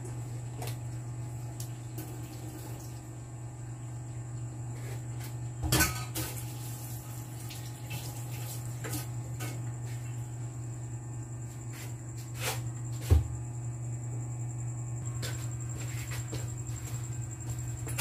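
Washing up at a stainless-steel kitchen sink: scattered clinks and scrapes of dishes and utensils, with two louder knocks about six and thirteen seconds in, over a steady low hum.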